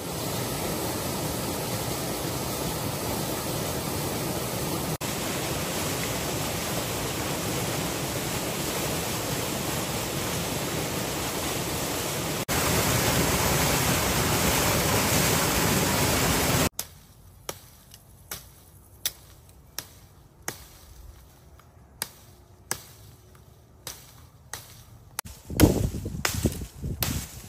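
Rushing water of a gushing spring, a steady hiss that gets louder about 12 seconds in, then cuts off. After it an axe chops into a small tree trunk: a dozen or so sharp knocks about a second apart, coming faster near the end.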